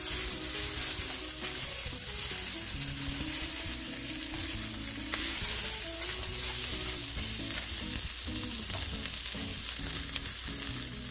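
Sliced turkey kielbasa and bell pepper strips sizzling steadily in a stainless steel skillet as they are stirred with a silicone spatula.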